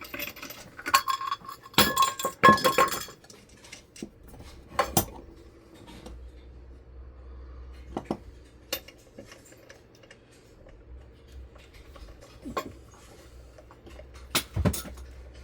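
Metal clinking and clattering from hand tools and the metal parts of a ceiling fan motor being handled. A dense run of ringing clanks comes about one to three seconds in, followed by scattered single clicks.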